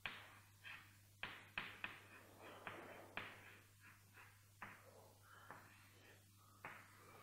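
Chalk tapping and scratching on a chalkboard as a word is handwritten and then underlined: faint, short separate strokes and clicks.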